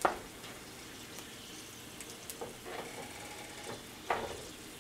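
Cumin seeds and whole dried red chilies frying in hot oil in a nonstick pan, a faint, quiet sizzle. A wooden spoon knocks against the pan at the start, and there is another single knock about four seconds in.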